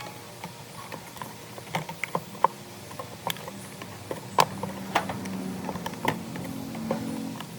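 Irregular clicks and taps, as of small hard parts being handled and tapped during hand work. A low hum joins about four and a half seconds in and stops near the end.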